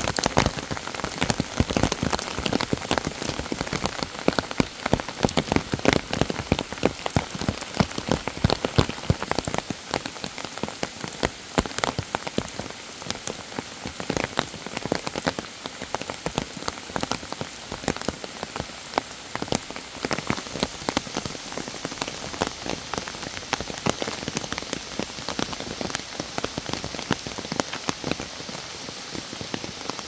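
Steady rain in a forest, with many separate drops striking close by over a constant hiss of rain. The drops are thicker and louder in the first ten seconds or so.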